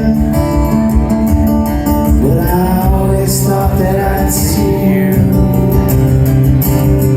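Live music: a guitar playing with a man singing long held notes, a song drawing to its close.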